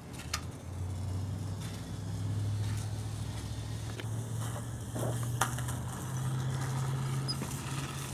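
Team Associated SC28 1/28-scale RC short course truck's small electric motor and drivetrain whirring steadily as it drives over concrete, the pitch rising about five seconds in as the throttle picks up, with a few light clicks.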